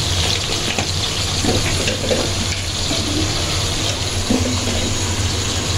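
Spice paste of ground cumin, ginger and chilli powder sizzling steadily in hot oil in a wok, with a steady low hum underneath.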